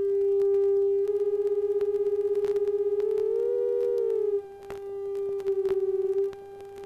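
Two audio test tones near 400 Hz, one per stereo channel, with the right-hand tone being varied. Where the two tones sit slightly apart they beat in a fast, even wobble. About three seconds in, the second tone glides a little higher and back down, and near the end it dips just below the first and beats again, with a few faint clicks along the way.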